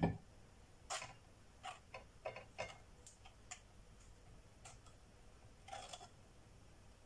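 A single dull knock, then a scatter of light, irregular clicks and scrapes as a table knife spreads a soft chocolate-and-cream mixture over a wafer, its blade tapping the wafer and the cake-tin base beneath.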